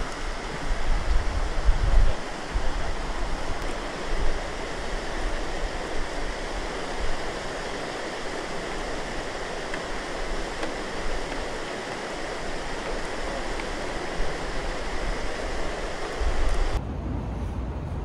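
Steady rush of flowing shallow river water, with low rumbling gusts in the first couple of seconds; the rush thins out suddenly near the end.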